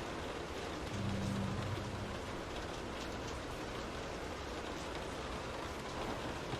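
Steady rain on a window, an even hiss with scattered drop ticks that grow sharper near the end. A brief low hum sounds under the rain about a second in and lasts about a second.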